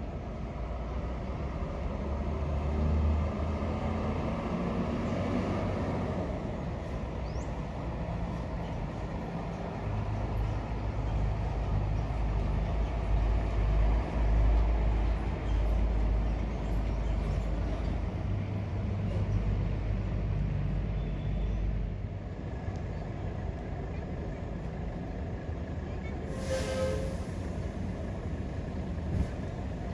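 Large bus's diesel engine rumbling as the coach pulls away from the terminal shelter, then a short hiss about a second long near the end, like air brakes venting.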